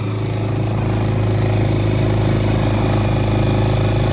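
2024 Suzuki DF6A six-horsepower four-stroke outboard motor, a single-cylinder engine, running steadily at low throttle during its break-in. It grows a little louder over the first second or so, then holds even.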